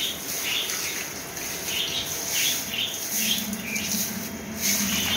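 Water from a hose pouring and splashing onto a wet stone floor as it is washed, a steady hiss. Birds chirp over it, two or three short chirps a second.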